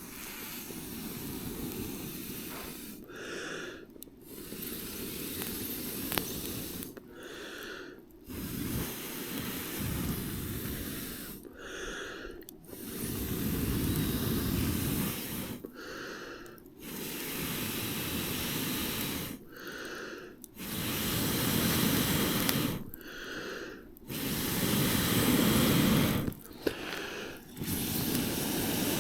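A person blowing hard on a campfire in long breaths to get it going. The blows repeat about every four seconds with short pauses between them and grow louder near the end.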